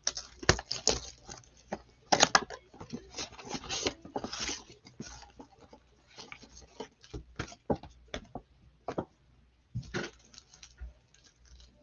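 Hands handling a cardboard trading-card hobby box and its wrapped card packs: irregular taps, clicks and short crinkling rustles, busiest in the first half.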